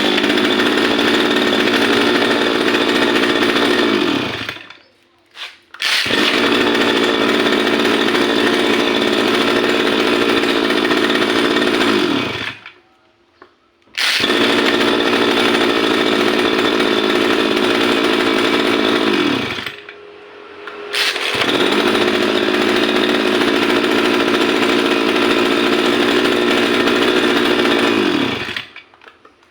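Stihl FR 3001 brush cutter's small two-stroke engine running in four spells of several seconds each. Each spell ends with the engine winding down and stopping before it starts again. The owner calls the engine's running 'batuk batuk' (coughing).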